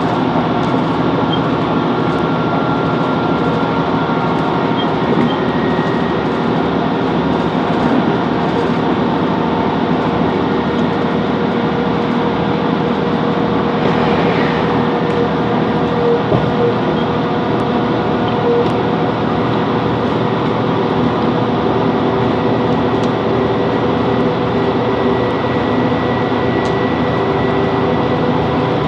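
Class 165 Networker Turbo diesel multiple unit running along the line: a steady rumble of wheels on track mixed with the hum of its underfloor diesel engine.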